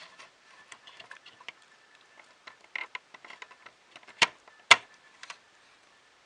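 Small circuit boards being handled and set down on a tabletop: a run of light clicks and taps, then two sharper knocks about half a second apart roughly four seconds in.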